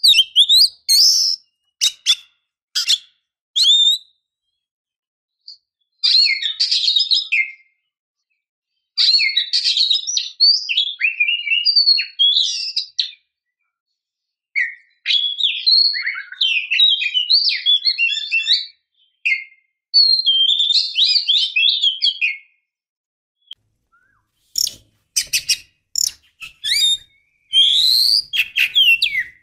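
Female oriental magpie-robin (kacer) in breeding condition calling: phrases of rapid, varied chirps and whistles, each a few seconds long, with short silent gaps between them.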